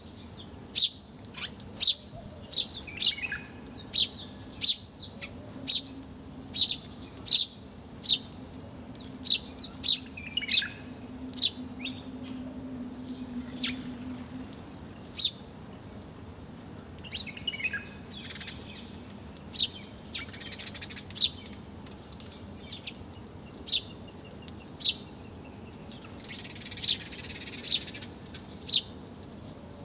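Birds chirping: short, sharp, high chirps repeating about once or twice a second, with a few softer warbling trills in between.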